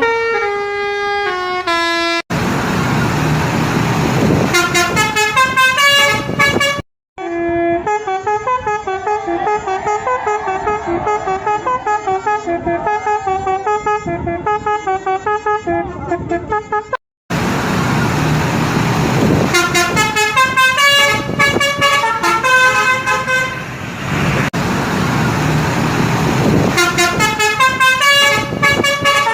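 Basuri telolet horns on tour buses, multi-trumpet musical horns, playing fast melodic runs of notes, several horn clips in succession with abrupt cuts between them. Under the horns runs a rumble of engine and street noise.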